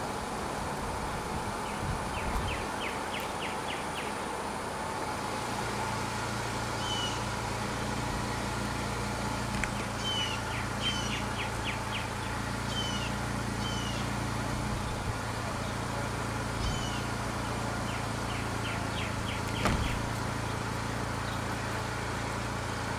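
Outdoor street ambience: a steady low hum comes in about five seconds in. Over it, short high chirps repeat every second or two, along with a few quick runs of about five ticks.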